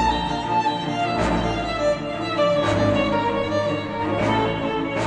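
Music with a violin melody and strings over a slow beat, with a hit about every one and a half seconds, played back through Klipsch The Fives powered speakers.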